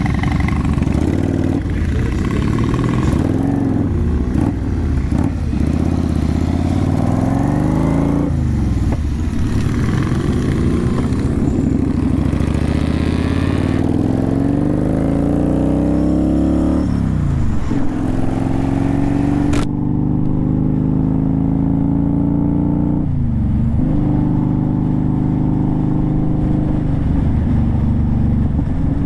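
Motorcycle engine pulling through the gears while riding: its pitch climbs in repeated sweeps and drops back at each upshift. About two-thirds through, the high hiss cuts off abruptly and the engine runs on more steadily with smaller rises.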